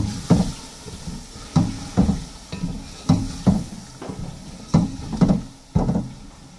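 A wooden spoon knocks and scrapes against an aluminium pot as chicken, tomato and masala are stirred together with newly added yogurt, with about ten strokes often coming in pairs. The masala sizzles faintly underneath.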